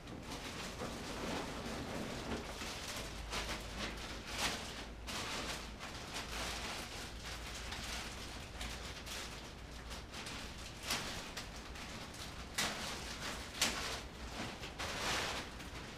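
Rustling and scattered knocks and clicks of a person rummaging and handling a fabric backpack, with several sharper knocks in the second half.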